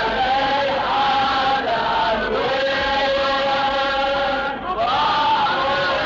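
Male chanting of an Arabic Husseini lament (latmiya) in long, drawn-out held notes that glide between pitches, with a short break between two phrases about four and a half seconds in.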